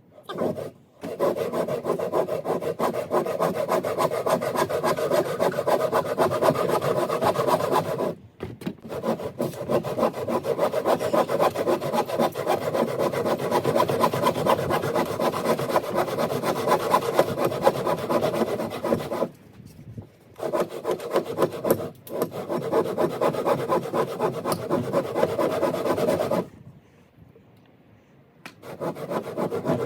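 Hand saw cutting through a timber joist with steady back-and-forth strokes, pausing briefly a few times.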